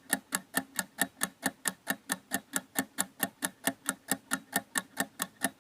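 Clock ticking fast: sharp, evenly spaced ticks, about four a second, with no change in pace.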